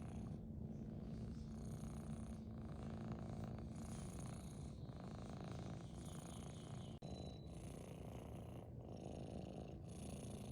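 Scottish fold kitten purring steadily and softly, the purr rising and falling in cycles of about a second with each breath in and out.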